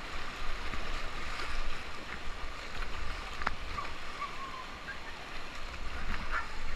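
Whitewater rapid rushing and splashing around a kayak, heard close from the boat, with paddle strokes in the water. A single sharp knock about halfway through.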